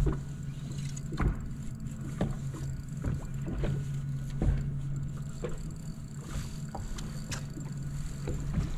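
Bass boat's bow-mounted electric trolling motor humming steadily, with scattered light knocks and small water slaps against the hull.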